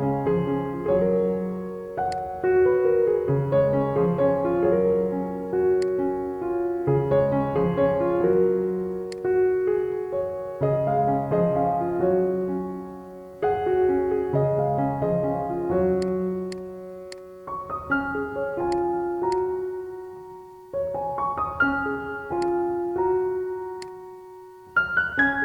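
Instrumental piano music: phrases of struck notes that ring and fade over repeating chords, with no singing.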